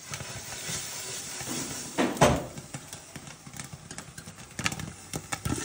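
Popcorn kernels popping irregularly in a glass-lidded frying pan over a gas flame, short pops over a steady hiss, with one louder knock about two seconds in.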